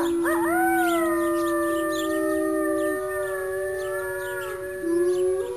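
Wolves howling in chorus: several long howls overlap at different pitches, gliding slowly up and down, with another voice joining near the end.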